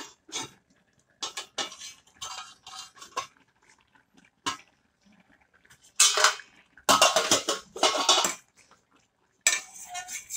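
Metal clatter of cookware: a steel lid taken off a stainless steel cooking pot and a steel ladle clinking and scraping against the pot. Irregular clinks, loudest in runs about six to eight seconds in, with more near the end.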